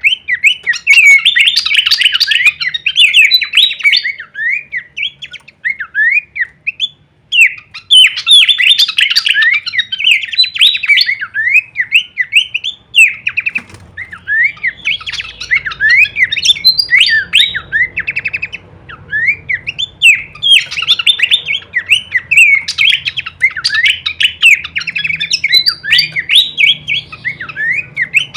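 Horsfield's babbler (pelanduk semak) singing a fast, varied stream of sharp chirps and rising and falling whistled slurs, in long phrases broken by short pauses.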